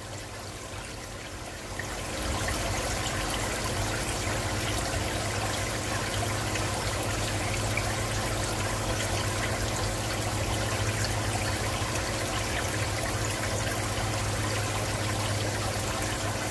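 Aquarium water trickling steadily, with a low steady hum underneath; it gets louder about two seconds in and then holds steady.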